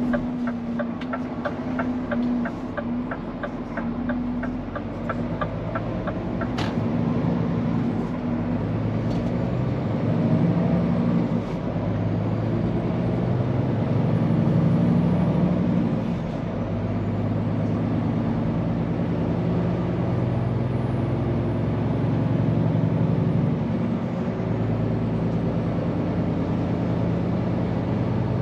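Scania P410 truck's diesel engine pulling under load, its note climbing and dropping back in steps as gears change. A turn-signal indicator ticks steadily at the start, stopping about six seconds in.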